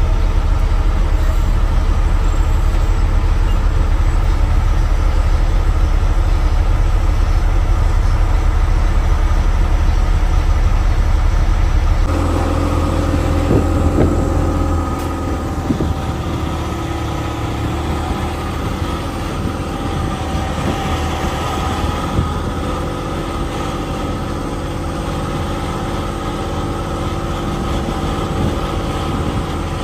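Log truck's diesel engine heard from inside the cab, a steady low rumble at idle. About twelve seconds in it changes to the truck moving slowly, a steadier engine hum with a few knocks and rattles.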